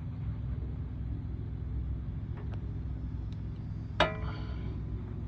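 Steady low rumble in the background, with one sharp metal clink about four seconds in that rings briefly.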